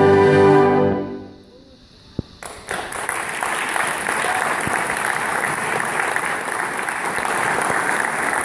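A concert band of low brass and saxophones holds a final chord, released about a second in and dying away in the hall. After a short hush the audience breaks into applause that keeps on steadily.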